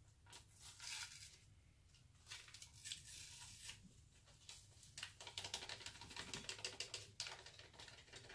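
Dry gravy-mix seasoning packets crinkling and rustling as they are torn open and shaken out into the pot, in several bursts of quick, faint crackling.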